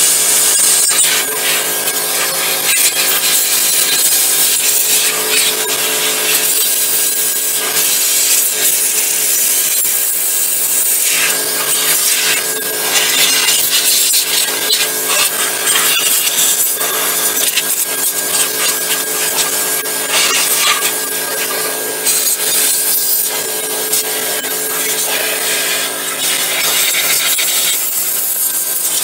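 Compressed-air blow gun blasting dust out of a desktop computer case: a loud hiss that swells and dips as the nozzle moves, over a steady machine hum.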